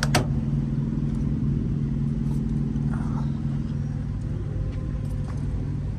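An engine idling with a steady low drone, and a single sharp click right at the start.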